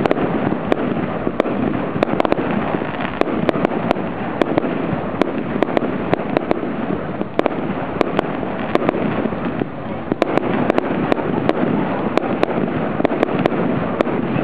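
Fireworks display: aerial shells bursting in a dense, irregular run of sharp bangs and cracks, several a second, over a continuous noisy din.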